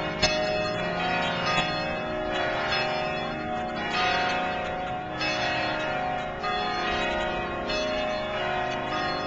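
Church bells pealing, with repeated strikes every second or so that overlap and keep ringing on.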